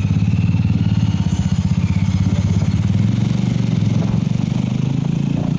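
A motor vehicle engine running steadily close by, with a fast, even pulse, under road noise while moving.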